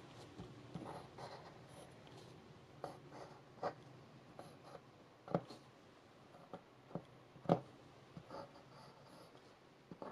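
Pen drawing on paper in short, scratchy strokes, sketching small triangles, with a few sharper taps of the tip scattered through.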